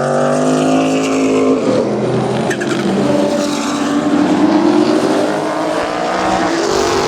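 Porsche 962 race car's turbocharged flat-six accelerating, rising in pitch. It lifts off about a second and a half in with a rough fluttering patch, typical of turbo flutter on a lift, then pulls up through the revs again.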